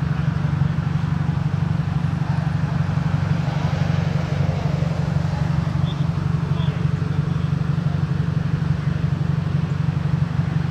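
Steady low engine hum from an idling vehicle, with faint distant voices.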